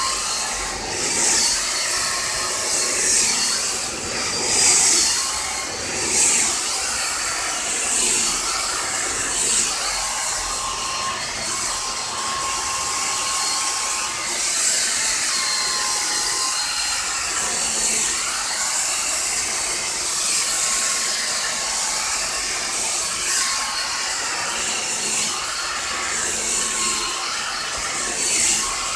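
Hot-air blow-dryer straightener brush running on its high setting: a steady motor whine under a rushing hiss of air that swells and fades every second or two.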